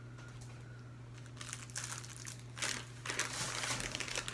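MRE plastic packaging crinkling as it is handled, starting about a second and a half in and getting denser and louder in the second half.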